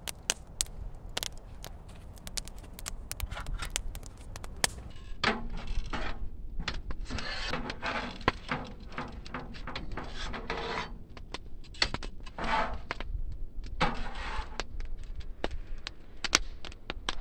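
Wood fire crackling and popping in a metal pop-up fire pit. After a few seconds, metal tongs clink and scrape against a metal sheet pan as burritos are turned, with the fire still crackling underneath.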